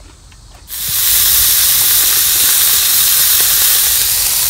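Sliced meat frying in a hot cast-iron skillet: a loud, steady sizzle that cuts in suddenly about a second in.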